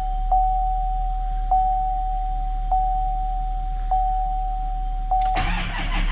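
A steady electronic warning tone with a faint click about every second and a bit, which cuts off about five seconds in as the starter begins cranking the cold-soaked LML Duramax diesel on a jump start, the engine turning over without catching.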